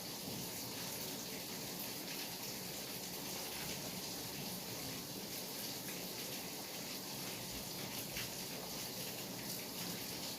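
Steady rainfall, an even hiss with scattered faint drop ticks.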